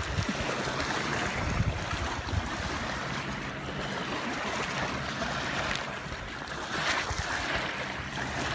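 Small waves lapping on a pebbly lakeshore, with wind buffeting the microphone in gusts during the first couple of seconds.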